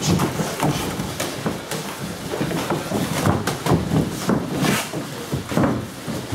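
Irregular thuds and slaps of boxing gloves and shin-guarded kicks landing during kickboxing sparring, overlapping from several pairs at once.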